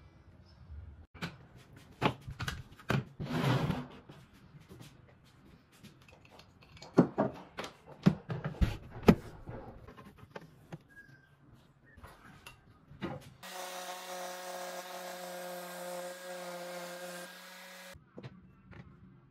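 Wood and tools being handled, with scattered sharp knocks and clatter, the loudest a cluster of knocks near the middle. About 13 seconds in, an electric hand planer mounted upside down as a bench planer is switched on and runs unloaded with a steady whine for about four and a half seconds, then cuts off.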